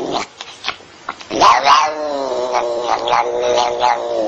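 Black-and-white cat meowing. After a short pause, one long, wavering, drawn-out call begins about a second and a half in and is still going at the end.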